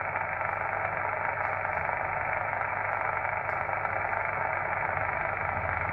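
Steady hiss of band noise from a Yaesu FT-817ND transceiver's speaker while it receives upper sideband on the 11 m CB band with nobody transmitting speech. A low hum runs underneath.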